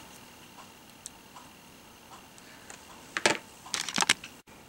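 A few quick, sharp clicks of fingers popping the small cut-out holes out of a paper die-cut piece, in two short clusters about three and four seconds in.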